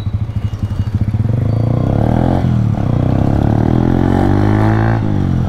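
Honda CB Shine 125 cc single-cylinder engine through an Akrapovic carbon-fibre exhaust with the dB killer removed, accelerating hard. Choppy exhaust pulses at first give way to a climbing engine note, which dips briefly about two and a half seconds in and again near the end.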